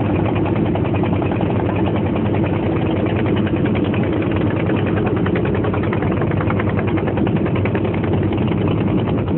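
Boat engine running steadily at an even, rapid chug, with the boat under way.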